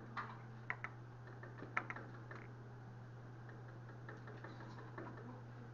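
A few light clicks and taps of plastic, mostly in the first two seconds or so, as a plastic dropper and plastic medicine cups are handled on a lab bench. A steady low hum runs underneath.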